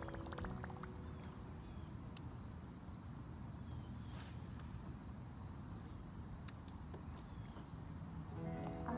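Insects chirring in a steady high-pitched chorus over a low, even rumble.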